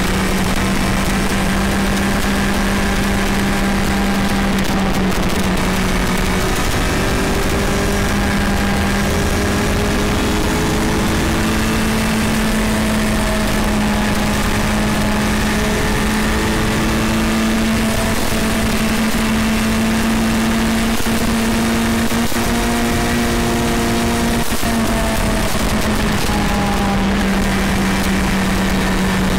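Vehicle engine running at a steady cruising speed, with road and wind noise. Its hum holds one pitch, rising slightly about a third of the way in and settling back near the end.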